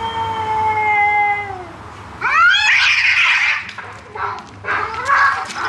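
Domestic cats in a territorial standoff: one long, drawn-out yowl that drops slightly in pitch as it ends. About two seconds in comes a sudden loud burst of screeching as they break into a fight, followed by shorter squalls.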